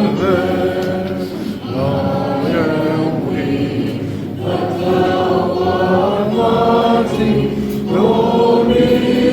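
A choir singing together, with long held phrases and short breaths between them.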